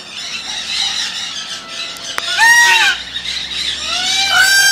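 Peafowl calling: one loud, arched honking call about halfway through, then a run of quick repeated calls starting near the end.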